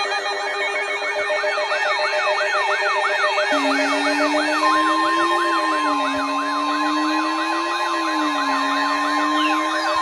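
Several electronic sirens sounding together. A fast yelp sweeps up and down about three times a second over steady alarm tones. About three and a half seconds in, a low, slowly wavering wail joins, and a second later a steady high tone joins as well.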